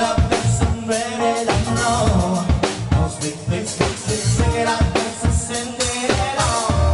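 Live band playing an upbeat dance song: electric keyboard over a steady beat, with singing.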